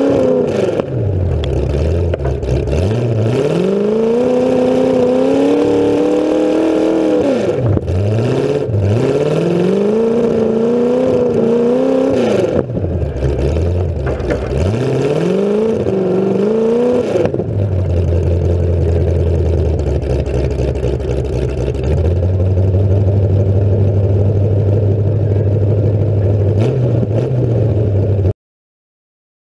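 Demolition derby car's engine, loud through short open exhaust stacks, revving up and dropping back several times, then settling into a steady low idle about 17 seconds in. The sound cuts off suddenly near the end.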